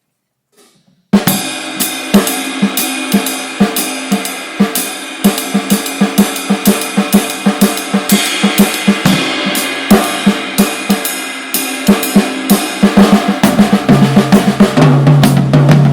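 Drum kit played in jazz time, with Swiss Army triplets (a flam followed by two more strokes) moved around the kit over cymbals. It starts about a second in, and deeper drum strokes come in near the end.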